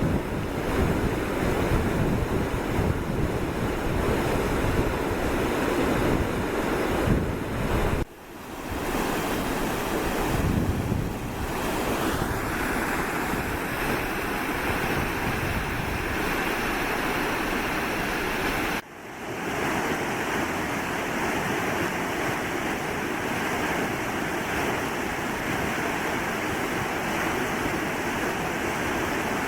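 Steady outdoor wind and rushing-water noise, with wind buffeting the microphone, heaviest in the first eight seconds. It breaks off sharply about 8 and 19 seconds in and comes straight back.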